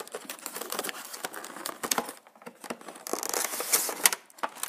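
Cardboard box being opened at its end flap and a plastic-covered packaging insert slid out of it: a run of rustling, scraping and small clicks, louder about three to four seconds in.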